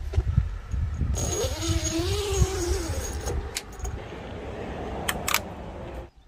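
Zippered mesh insect screen handled by hand: a zipper is pulled for about two seconds with a rasping sound, then a few sharp clicks as a magnetic mesh screen is pressed onto the van's steel window frame, over a low rumble on the microphone.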